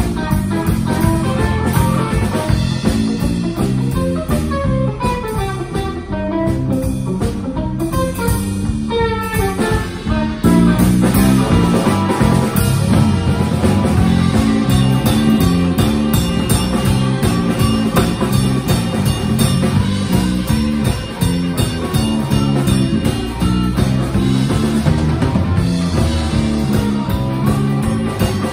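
Live rock band with electric bass and drum kit playing an instrumental passage with no singing. The first ten seconds are sparser, with quick runs of notes, and then the full band comes in louder about ten seconds in.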